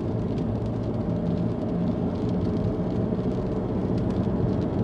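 Steady engine and road rumble of a car being driven, heard from inside the cabin.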